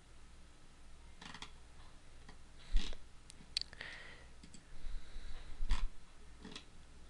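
Computer mouse button clicking, about half a dozen separate clicks spaced a second or so apart, the loudest about three seconds in, over a low steady hum.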